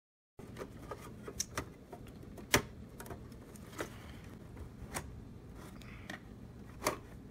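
Scattered clicks and knocks from an Alienware Graphics Amplifier's side cover being pressed and shifted against the chassis, the loudest about two and a half seconds in. The cover won't close because the video card inside is too thick.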